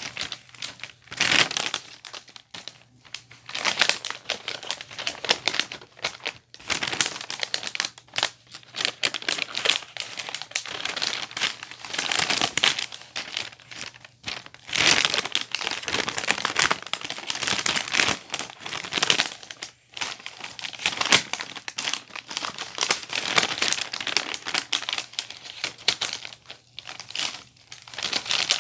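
Sheet of Christmas wrapping paper rustling and crinkling in irregular bursts as it is handled and folded around a present, with brief pauses between handlings.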